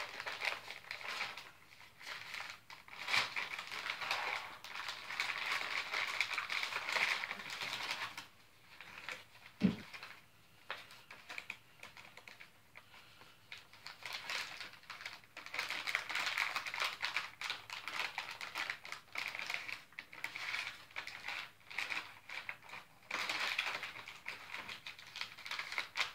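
MRE ration packaging crinkling and rustling in the hands as a pouch is worked, with one dull thump a little under ten seconds in.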